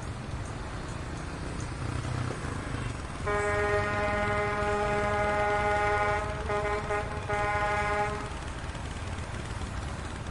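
A vehicle horn sounds one long steady blast of about three seconds, then two shorter blasts close behind it, over a steady rumble of street traffic.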